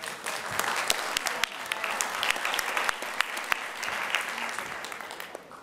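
Audience applauding: many hands clapping, swelling quickly and fading out near the end.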